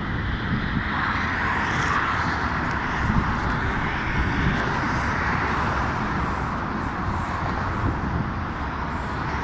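Steady noise of road traffic on a busy multi-lane street, swelling as vehicles pass from about a second in and easing off later.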